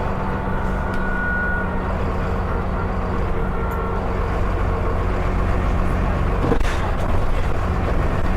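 Dennis Enviro 400 double-decker bus's diesel engine running steadily with a deep even hum, a faint thin whistle early on, and a single knock about six and a half seconds in.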